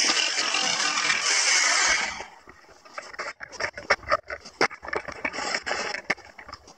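Electric jigsaw cutting plywood, stopping abruptly about two seconds in. Then a run of irregular knocks and clatters as the cut plywood board is moved about on the workbench.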